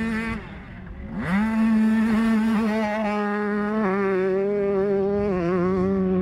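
Motocross bike engine held at high, steady revs. It drops away just after the start, revs back up about a second in and holds, easing slightly lower twice near the end.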